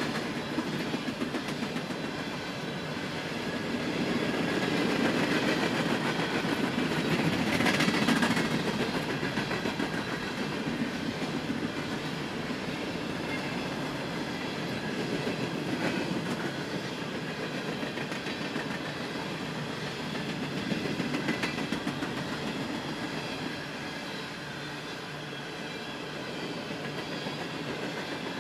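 Empty steel coal hopper cars of a freight train rolling past, a steady rumble with the clickety-clack of wheels over the rail joints. It swells louder about eight seconds in.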